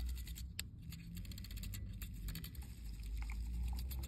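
Handheld battery milk frother whirring in creamer in an enamel mug, its wire whisk clicking and rattling irregularly against the mug.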